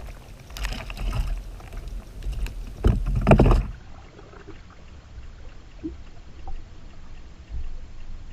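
Water sounds around a plastic sea kayak at sea, with two louder splashing swishes about one and three seconds in, then quieter lapping.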